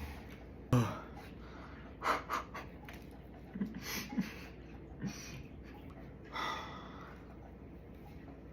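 A man eating a soft glazed donut: short gasps and breaths through the nose, with mouth noises between them, coming in a few separate bursts.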